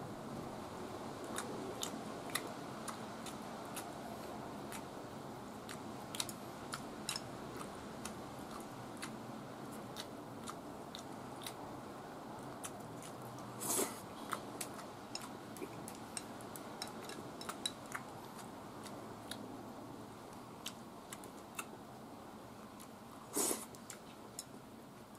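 A person eating with chopsticks from a ceramic bowl: scattered small clicks of chopsticks against the bowl and soft chewing, over a steady low room hum. Twice, about halfway and near the end, a louder short noise stands out.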